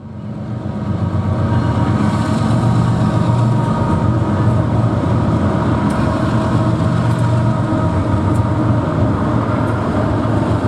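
Diesel freight train passing: the locomotive's engine drones with a steady low hum as the train rolls by, with a few faint ticks. The sound fades in over the first two seconds and then holds steady.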